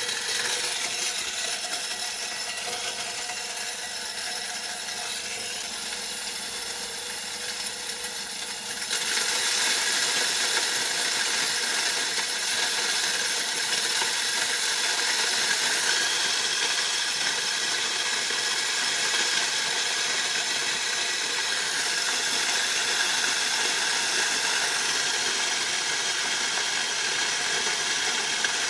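Homemade electric grain crusher running and grinding dried corn kernels fed in from a hopper: a steady, loud mechanical grinding with rattling grain, getting louder about nine seconds in.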